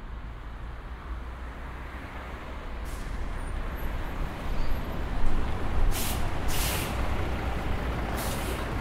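City bus pulling in to the stop: a low engine rumble grows louder over the second half, then air brakes hiss in three short bursts near the end.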